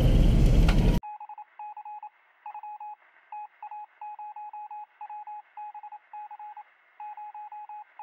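Morse-code beeps: one mid-pitched tone keyed in quick short and longer pulses over a thin radio-like hiss, a spy-transmission sound effect. It cuts in abruptly after about a second of louder noise.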